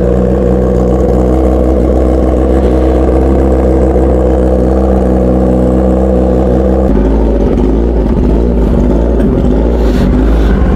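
Kawasaki ZX-10R's inline-four engine idling steadily through a loud SC-Project aftermarket exhaust, soon after a cold start. About seven seconds in the even idle sound breaks off abruptly and turns rougher and less regular.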